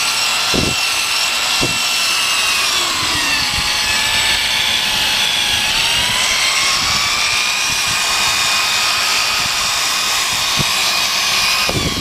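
Electric drill spinning an 800-grit sanding disc against a plastic headlight lens: a steady motor whine over the hiss of sandpaper rubbing. The whine drops in pitch about three seconds in and climbs back a little around six to seven seconds.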